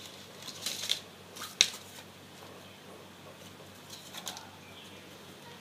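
A toddler pulling open a thin cardboard snack box: a few short bursts of paperboard crackling and snapping, the sharpest snap about one and a half seconds in and another cluster about four seconds in.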